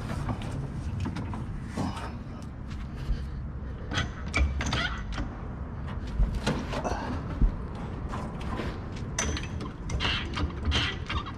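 Irregular mechanical clicks, clanks and knocks of hand tools and metal parts as a fuel tank is fitted back under a car, over a steady low rumble.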